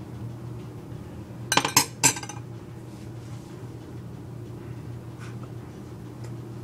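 A metal spoon clinking sharply against a glass container three or four times in quick succession, about a second and a half in.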